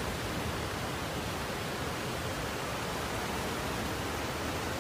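Muddy floodwater torrent rushing down a street, carrying debris: a steady, even rushing noise.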